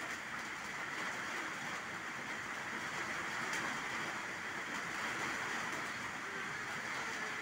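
Steady rain falling onto standing floodwater and the leaves of the trees, an even hiss without a break.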